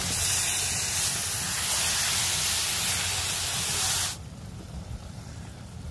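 Button mushrooms hitting hot masala and oil in a kadai, a loud steady sizzle. The sizzle stops abruptly about four seconds in, leaving only a much fainter hiss.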